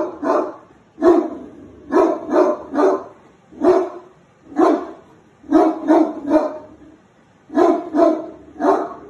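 A Great Dane barking repeatedly in short clusters of two or three loud barks about once a second, with brief pauses between clusters: alarm barking at a mounted deer head on the wall.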